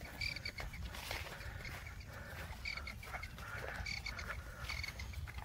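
Footsteps and rustling of people walking a narrow path through dense scrub, with an animal's short high call repeating about once a second.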